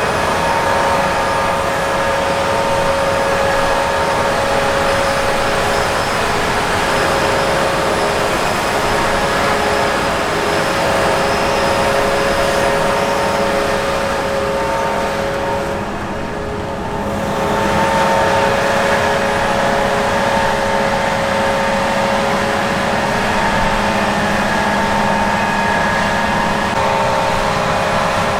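Heavy harvest machinery running steadily: a broad engine and drive rumble with several steady whining tones over it. The level dips briefly a little past halfway, then returns.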